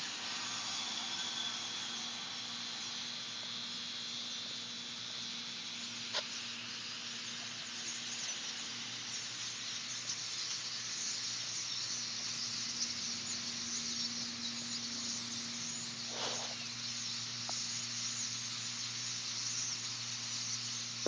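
Many small birds chattering at once, heard as a dense, steady high hiss, over a steady low hum. A single sharp click comes about six seconds in.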